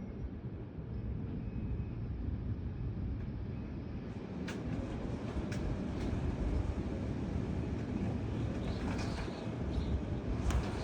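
Strong, gusty thunderstorm wind with a steady low rumble, heard through an open window, with a few faint clicks or rattles about halfway through and near the end.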